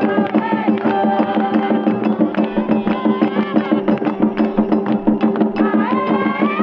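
Music driven by fast, rhythmic hand-drum and percussion strokes, with a sustained melody line over them.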